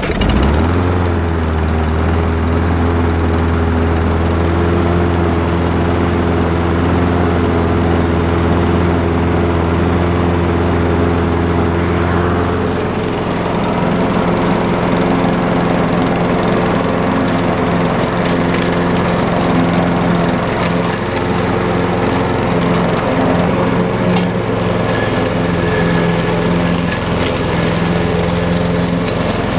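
Craftsman 6.75 walk-behind lawnmower engine catching right at the start and running steadily, its carburetor just cleaned of a clogged jet that had kept it from starting after winter storage. About 13 s in, the deep part of the engine note changes and stays changed.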